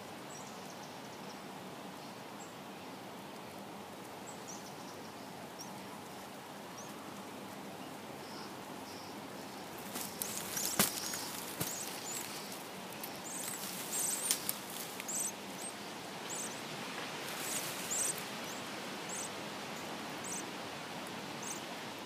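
Northern cardinal nestlings begging: short, thin, very high cheeps over a steady outdoor hiss. About ten seconds in there is a burst of rustling and clicks in the nest, then the cheeps come more often and louder until near the end.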